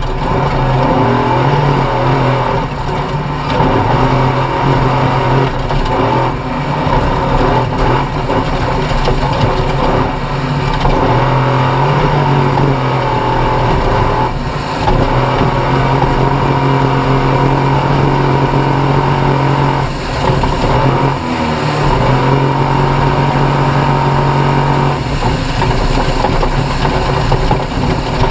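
Off-road race vehicle's engine running hard at steady high revs, its pitch dropping briefly a few times and then climbing back.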